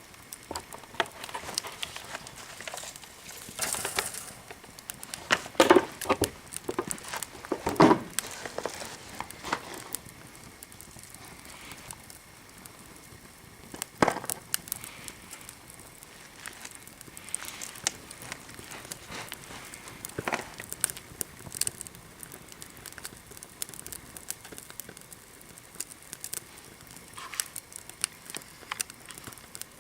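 Small wood fire crackling with scattered pops, and a few louder snaps or knocks now and then.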